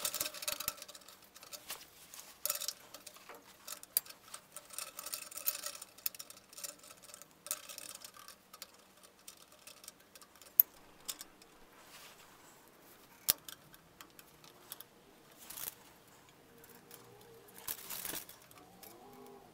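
Scattered light clicks, taps and scrapes of short steel exhaust-tube pieces being handled and fitted together by hand, with a few sharp metallic snaps as small welding magnets go onto the tube.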